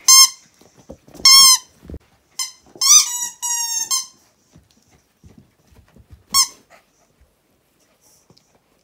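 Squeaky dog toy squeaked repeatedly as a miniature schnauzer puppy chews it: about five high squeaks, the longest lasting about a second near the middle and the last coming a few seconds later.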